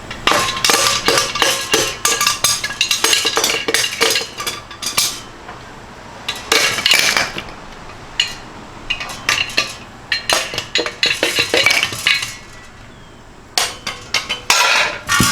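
Metal tools and engine parts clinking and clanking in quick clusters of sharp clicks with short pauses between, as a Ford Coyote 5.0 short block is torn down.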